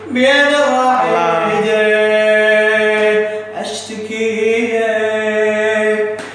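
A man chanting an unaccompanied Shia religious lament (a latmiya-style recitation), holding long ornamented notes, with a short breath about three and a half seconds in.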